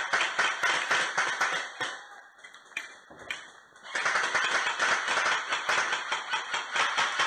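Dense, irregular clicking and rustling, loudest in the first two seconds and again from about four seconds in, with a quieter stretch between.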